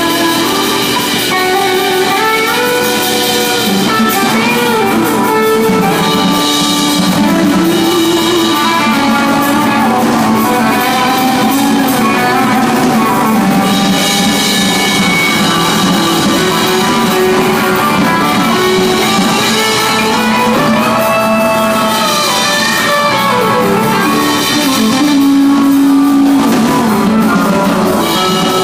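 Live rock band playing: electric guitar over a drum kit, with pitched lines that bend up and down.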